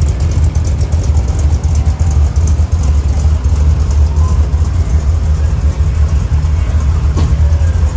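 Car engine idling with a deep, steady exhaust rumble, its exhaust fumes filling the building.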